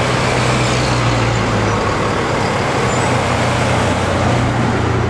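A motor vehicle's engine running with a steady low hum, mixed with traffic noise.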